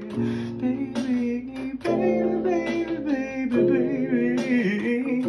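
Music: a man singing over instrumental accompaniment.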